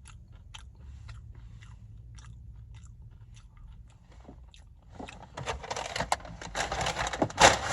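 Close-up chewing of chips: soft mouth clicks, then louder, denser crunching from about five seconds in.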